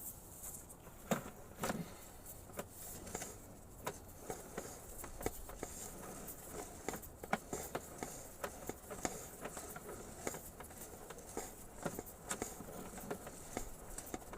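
Irregular light clicks and taps, several a second, over a faint steady hiss, typical of a sewer inspection camera's push cable being fed into the drain line.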